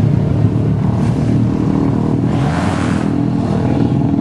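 Dirt-track motorcycle engines running, several engine notes overlapping and wavering slightly in pitch, with a brief hiss of noise about halfway through.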